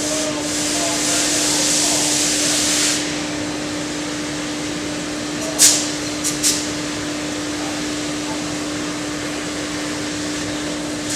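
Compressed air hissing for about three seconds, then three short sharp blasts of air about halfway through, over a steady machine hum.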